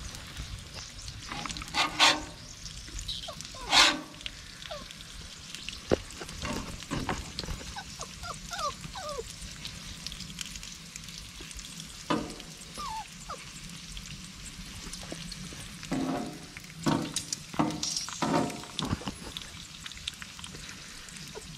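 A dog whining and giving short yelps every few seconds, excited for its food, over the steady sizzle of bacon and steak frying.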